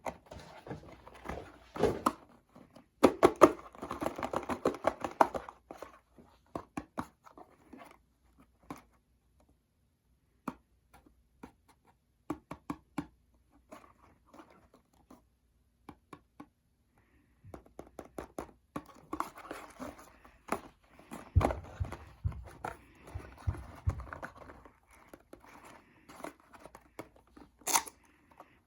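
Plastic packaging of a Happy Meal toy being torn open and crinkled by hand, in two busy spells with scattered clicks and handling bumps and a quieter stretch between them.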